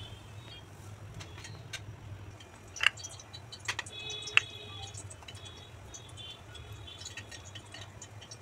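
Metal tongs and a spoon clinking against a ceramic plate: a few scattered taps, the two loudest about three and four and a half seconds in, each with a brief ring from the plate. A steady low hum runs underneath.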